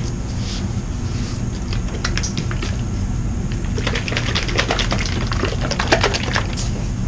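A quick, irregular run of small plastic clicks and crackles from plastic paint cups and bottles being handled. It starts about two seconds in, grows busiest past the middle and stops shortly before the end, over a steady low hum.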